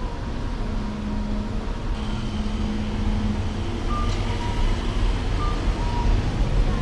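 Road traffic running past a city intersection. About halfway through, a pedestrian crossing signal starts a repeating two-note electronic chime, a higher note then a lower one, as the light for walkers turns green.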